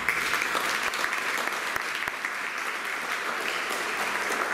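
Audience applauding steadily, many hands clapping at once, right after a song ends.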